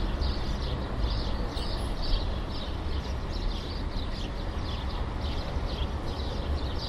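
City ambience: a steady low rumble of distant traffic with small birds chirping over it, short high chirps about twice a second.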